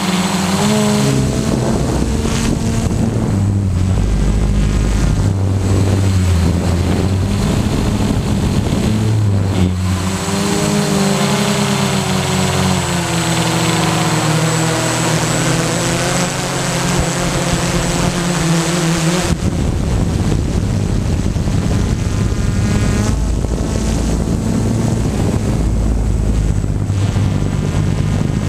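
Camera drone's electric motors and propellers whirring, their pitch wavering up and down as the craft manoeuvres, with a change in tone about two-thirds of the way in.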